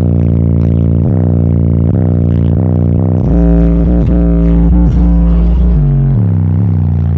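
Bass-heavy music played loud through a car audio system's PowerBass subwoofer, with deep bass notes that slide down in pitch every second or so.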